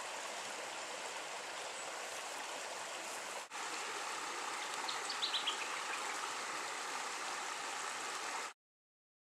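Shallow creek water running over rocks, a steady rush. A short run of high notes falls in pitch about five seconds in, and the sound cuts off suddenly near the end.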